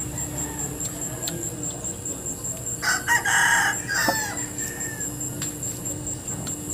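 A rooster crows once, about three seconds in, the call lasting a little over a second.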